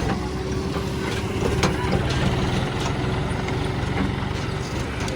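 Heavy diesel engine running steadily, with a few sharp knocks and clanks heard over it.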